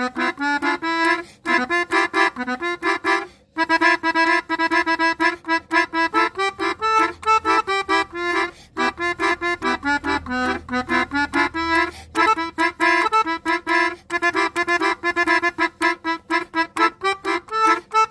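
Basuri multi-tone musical 'telolet' horn playing a fast melody of short notes, with a brief break about three and a half seconds in.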